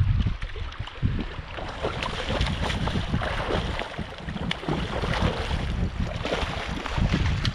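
Strong wind buffeting the microphone in gusts, over the steady wash of surf.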